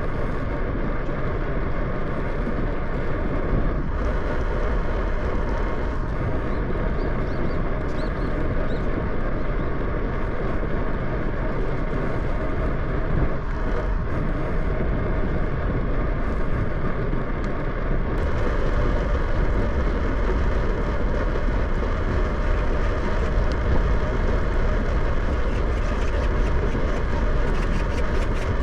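Steady wind rush and tyre noise from a bicycle ride.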